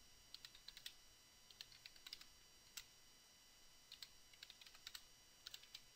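Faint typing on a computer keyboard: short, irregular runs of key clicks.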